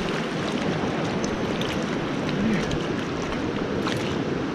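Steady rush of a fast-flowing rocky river, with a few small splashes near the end as a hooked brook trout thrashes at the surface.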